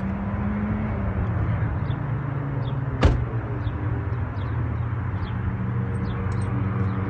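Steady low engine hum with one sharp click about three seconds in, and faint chirps high above it.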